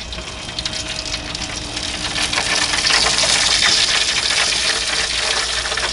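Weber Genesis II E-310 propane grill hissing as it cooks rotisserie turkey breasts: lit gas burners and sizzling drippings. The hiss swells about two seconds in as the lid is lifted, over a faint steady hum.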